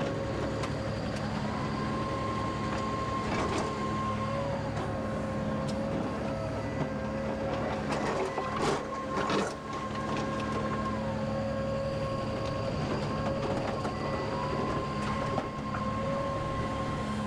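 Kubota KX080 excavator running and working, its hydraulic whine rising, holding and falling back as the arm moves under load, with a few clanks of rubble and the bucket about halfway through.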